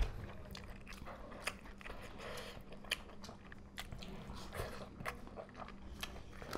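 Close-up eating sounds of two people biting and chewing pieces of pork curry with rice eaten by hand, with scattered short wet clicks and smacks.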